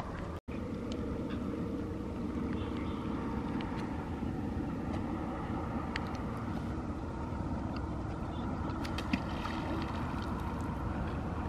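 Steady low rumbling outdoor background noise, broken by a brief cut-out about half a second in and a single sharp tick about nine seconds in.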